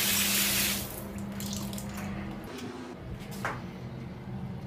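Water gushing from a chrome bath-shower mixer tap, cut off about a second in. A quieter low steady hum follows, with a single sharp click near the end.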